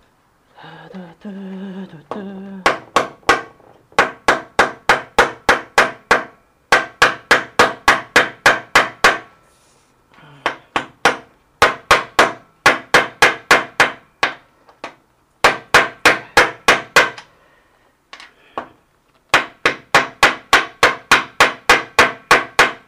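Hammer blows on steel, about four a second in runs of several seconds with short pauses, each strike ringing: a new 6004 ball bearing being driven into the spin bike's housing, struck through an old bearing laid on top of it.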